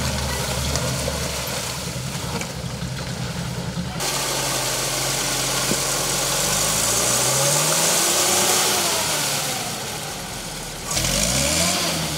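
Off-road 4x4 engine running steadily, then revving with rising pitch, a loud hiss through the middle, and more rising revs near the end.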